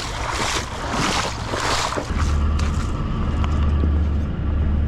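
Boots wading through a shallow rocky creek, splashing with each step, about two steps a second. After about two seconds this gives way to a steady low drone from a river towboat's diesel engines.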